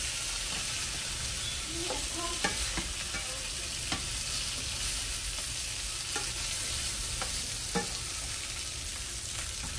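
Chicken tenders frying in oil in a hot pan, a steady sizzle, with several short clicks of metal tongs against the pan as the pieces are lifted out.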